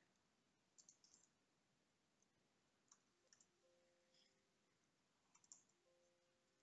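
Near silence with faint, scattered clicks of computer keyboard keys being pressed, in a few small groups of taps.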